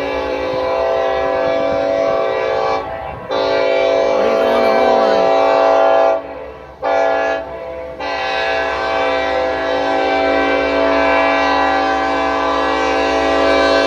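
Diesel locomotive air horn of an approaching train, which the railfan takes for a Norfolk Southern, sounding the grade-crossing signal: long, long, short, long. The last long blast starts about eight seconds in.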